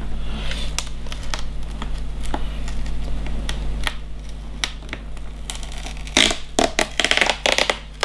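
Hands working at the plastic base of a laptop: scattered clicks and scratches, then a denser, louder run of scraping and clicking from about six seconds in as the rubber foot strip is picked at with fingers and a razor blade. A low electrical hum sits underneath.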